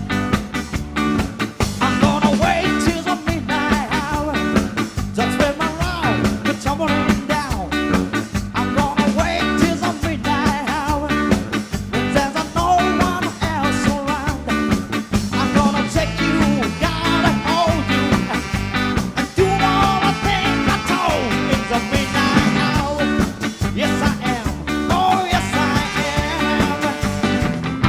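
Live band playing a soul-rock number without vocals: a lead line that bends in pitch over a steady bass and drum groove.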